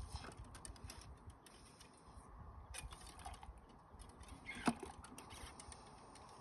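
Cleaning rod with a patch being worked up and down inside a muzzleloader barrel whose breech end stands in hot soapy water, syringing the water through the bore. Faint clicking and rubbing, with one louder sharp click and a brief squeak a little past the middle.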